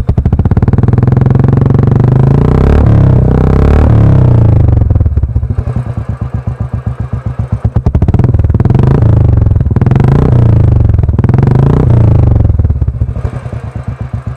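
Royal Enfield Classic 350's single-cylinder engine running through an aftermarket Wild Boar silencer, revved up and down several times, then dropping back to a slower, separate-beat idle near the end.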